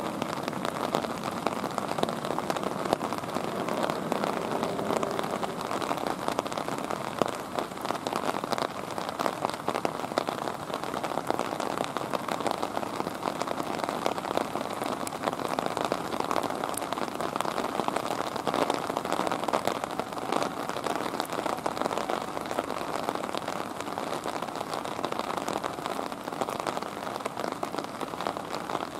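Steady rain, a dense crackle of individual drops hitting a surface.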